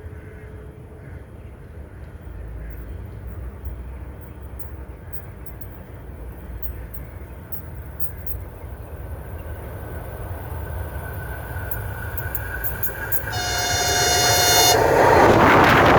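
Approaching train, its rumble growing steadily louder; it sounds its horn for about a second and a half near the end, then passes close with a loud rush of wheels on the rails.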